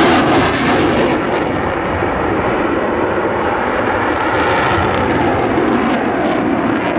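Loud, steady jet roar of an RAF Eurofighter Typhoon's twin EJ200 turbofans in a display flypast, with afterburner lit. The high hiss thins out about a second and a half in and returns about four seconds in.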